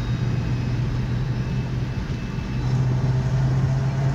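Car driving at speed, heard from inside the cabin: a steady low drone with road and wind noise, stepping up a little in pitch and loudness about two and a half seconds in.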